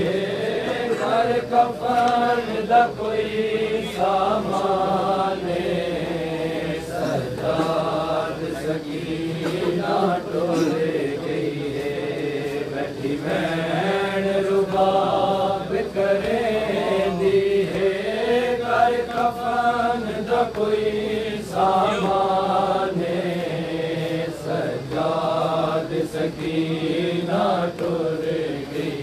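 Men's voices chanting a noha, a Shia mourning lament, in unison as a led group recitation, with hands striking chests in matam.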